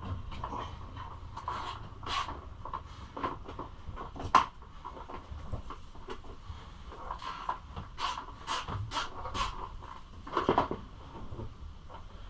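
Parts being handled and worked into a tight fit on a Kawasaki KLX110 pit bike: irregular clicks, knocks and scrapes, with a sharper knock about four seconds in and a few quick knocks near the end.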